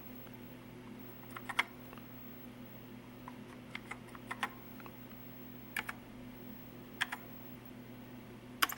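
Keys pressed on a Commodore SX-64's built-in keyboard, slow hunt-and-peck typing of single clicks and small groups with pauses of a second or more, over a steady low hum.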